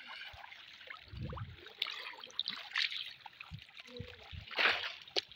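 Shallow muddy pond water splashing and trickling as hands grab at fish, with one louder splash about four and a half seconds in.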